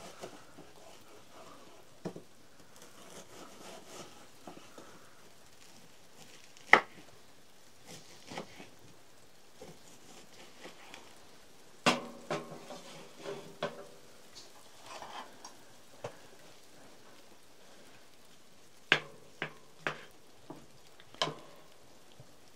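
Scattered clinks and knocks of metal cookware being handled, a few of them ringing briefly, with a low steady hiss underneath.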